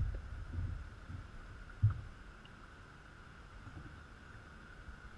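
Low thumps and knocks from a Feelfree Lure 11.5 kayak being paddled, with its loose camera mount being jolted. The knocks come in the first two seconds, with one sharp knock about two seconds in, then the sound settles to a quieter steady background.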